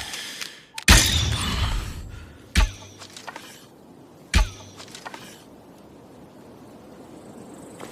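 Bow-and-arrow sound effects: a sudden sharp hit about a second in with a noisy tail lasting about a second, then two short sharp snaps nearly two seconds apart.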